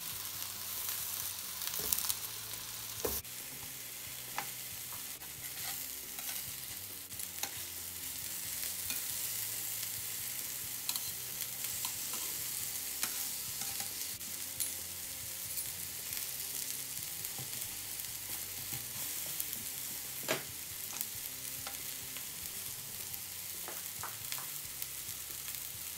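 Caul-fat-wrapped meatballs (köfte), tomatoes and green peppers sizzling steadily on a hot griddle plate over a gas hob. A few light clicks stand out, around two seconds in, a second later and again near twenty seconds.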